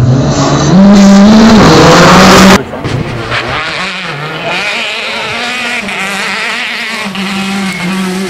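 Rally car engine at high revs, loud, with its note rising about a second in. About two and a half seconds in it cuts suddenly to a quieter rally car engine that rises and falls in pitch as it is driven hard.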